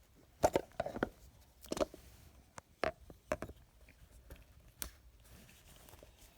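Scattered light clicks, taps and rustles of small items and packaging being handled, a dozen or so irregular knocks with quiet gaps between.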